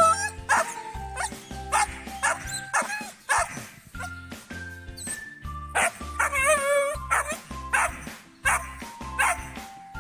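A young dog barking over and over, a bark every half second or so, with a longer wavering cry about six seconds in, over background music with a steady beat.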